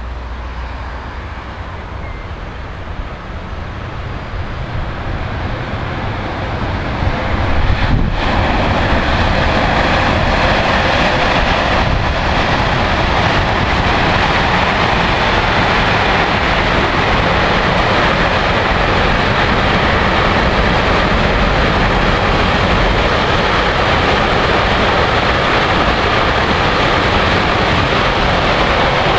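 A train passing close on the track. Its noise grows over the first several seconds, then stays as a loud, steady rolling rumble of wheels on rails for the rest of the time.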